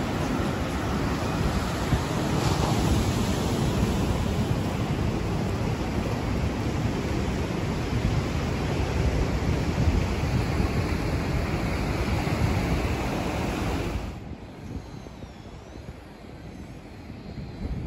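Wind buffeting the phone's microphone over the wash of surf breaking on a sandy beach. A few seconds before the end it drops to a much quieter hiss.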